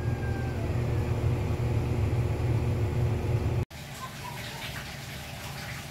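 A steady low mechanical hum that cuts off suddenly about three and a half seconds in, leaving quieter room tone.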